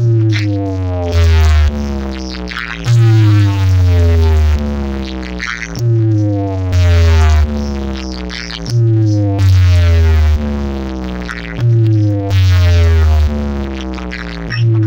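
Loud electronic DJ music blasting from a stacked tower of bass bins and horn loudspeakers. Heavy bass hits land about every one and a half seconds under falling synth sweeps that repeat about every three seconds.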